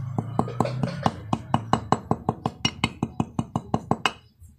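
Rapid, even light hammer taps, about six a second for roughly four seconds, each with a short ring, seating the dust-seal cover into a motorcycle's rear sprocket hub.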